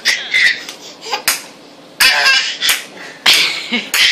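Baby laughing hard in several short bursts.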